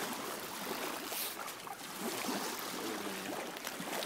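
River water lapping and trickling at the bank as a steady hiss, with a single sharp click near the end.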